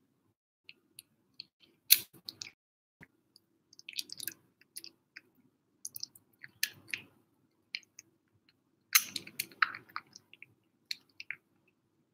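A kitten eating wet canned cat food mixed with water from a bowl: irregular wet chewing and smacking, with louder clusters about two seconds in, around seven seconds and around nine seconds.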